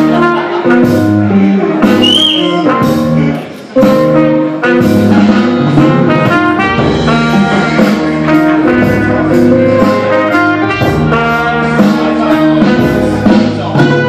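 Jazz music with brass instruments, trumpet and trombone, playing an instrumental passage. It dips briefly about three and a half seconds in.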